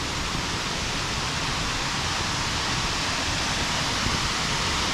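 Waterfall rushing: a steady, full roar of falling water, growing slightly louder.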